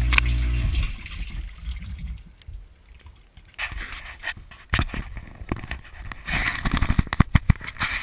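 Dishwasher wash pump humming with water spraying and splashing inside the tub, stopping abruptly under a second in. Then trickling water and a series of clunks and rattles as the door stands open and the racks and the camera in its plastic case are handled.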